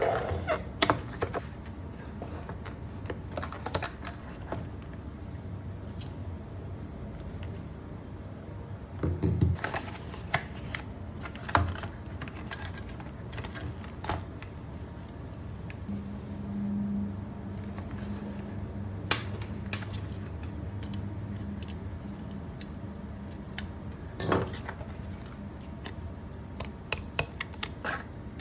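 Hands unboxing a Point Air 2 card machine: scattered taps, clicks and rustles of the cardboard box, plastic wrapping and the device being handled, over a faint steady low hum. A low drone is added for several seconds just past the middle.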